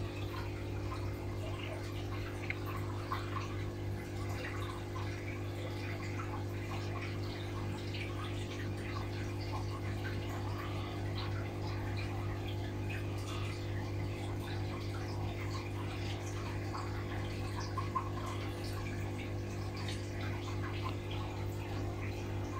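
Aquarium air pump humming steadily while air bubbles from a sponge filter gurgle and pop at the water surface in an irregular crackle.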